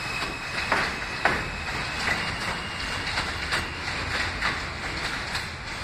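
R160 subway train rolling along an elevated steel track with a steady rumble, its wheels clacking irregularly over the rail joints.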